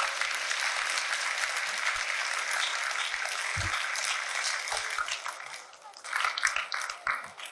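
Audience applauding, a steady crackle of many hands clapping that dies down near the end.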